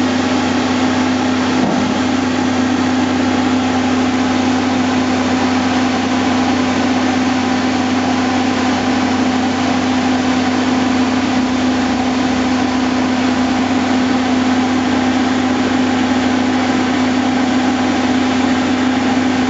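Diesel engines of a Volvo PF6110 tracked asphalt paver and a dump truck running steadily together, a constant loud drone with a strong steady hum.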